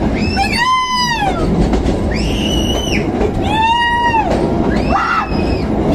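Several passengers whooping long, high cries one after another, each held for about a second and sliding up and down at the ends, over the low rumble of a metre-gauge train running through a tunnel.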